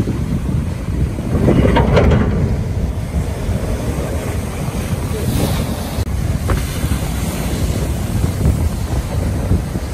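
Strong wind buffeting the microphone over heavy surf, as storm waves break against the hull of a grounded cargo ship and the concrete breakwater blocks. The loudest wave crash comes about two seconds in.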